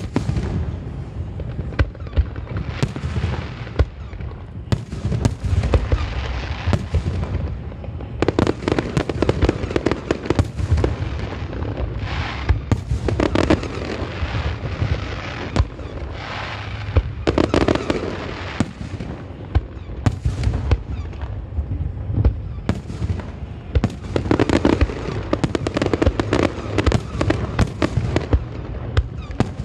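Aerial fireworks display: shells bursting one after another in a continuous series of booms and pops, with several denser barrages of rapid crackling.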